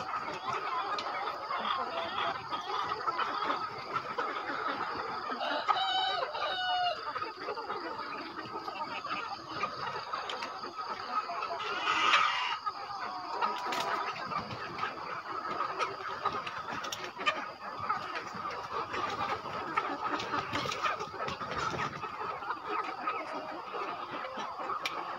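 A large flock of gà hồ hens, a Đông Tảo cross, clucking continuously in many overlapping voices. Single louder calls stand out now and then, most clearly about six and twelve seconds in.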